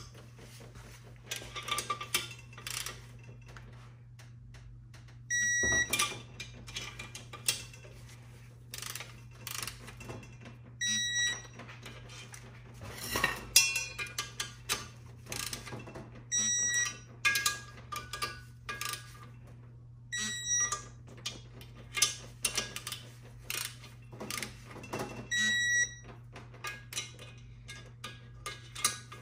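Digital torque wrench beeping every few seconds as each engine-case bolt reaches its set torque, with ratchet clicks and tool knocks between the beeps.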